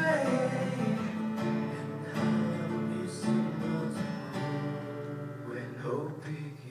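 Acoustic guitar being strummed, playing a run of steady chords.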